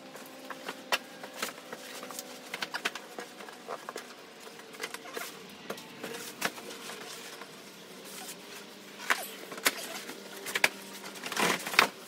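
Large flat cardboard boxes being handled and shifted about, with irregular knocks, taps and scrapes of cardboard. The knocks are loudest about three-quarters of the way through.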